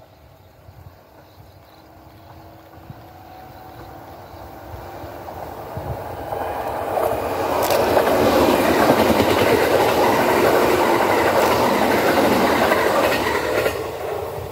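Red-and-white Kintetsu electric commuter train approaching and running past at speed. It grows steadily louder over several seconds, stays loud for about six seconds with a few sharp wheel clacks over the rail joints, and drops away near the end.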